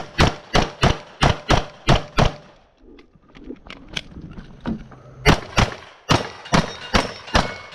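9mm Glock 34 pistol fired in fast strings: about eight shots in the first two and a half seconds, a gap of about three seconds, then another string of about seven shots.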